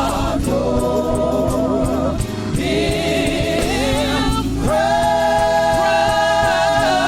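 Gospel choir singing with band accompaniment, sustained notes with vibrato and a long held note from about two-thirds of the way in.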